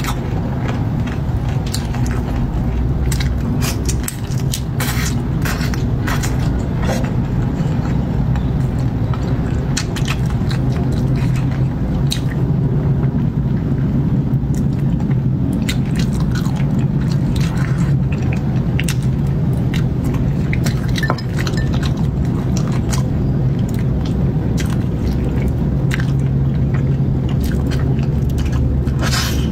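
Close-up chewing and biting of spicy braised chicken feet: many short, wet clicks and crunches of the mouth working on skin and bone. A steady low hum runs underneath.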